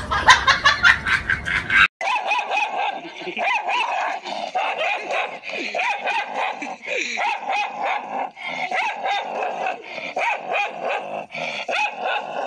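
About two seconds of music with a regular beat, cut off suddenly. Then a dog barks rapidly and repeatedly in short, sharp barks and yips at its own reflection in a mirror.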